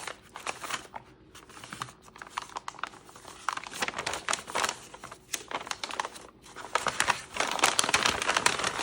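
Knife packaging crinkling and rustling as it is unwrapped, with a dense run of crackles that grows louder in the last two seconds.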